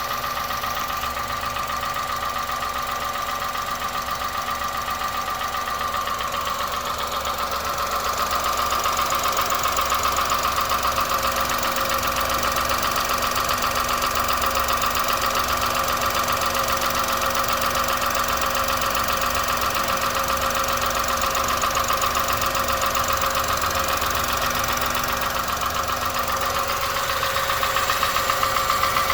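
2001 Honda Insight's 1.0-litre three-cylinder engine idling with a rapid, steady tapping, slightly louder from about eight seconds in. The tap persists at idle although the valves have been adjusted.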